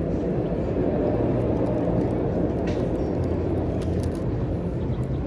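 Steady low rumbling background noise with a faint hum underneath and a few light clicks.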